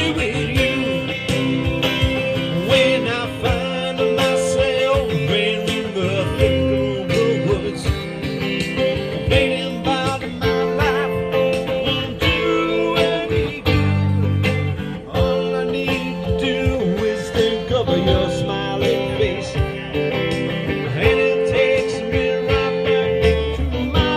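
Live guitar music: a solo performer playing an original country-blues style song on guitar.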